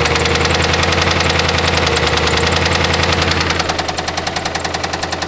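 Ford Crown Victoria's 4.6-litre V8 running with a rapid, even knock from the bottom end, the sign of a spun or worn connecting-rod bearing. It drops a little in loudness a few seconds in.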